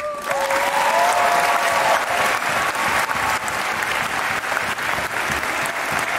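Audience applauding, starting suddenly and holding steady, with a few high cheers over the first two seconds.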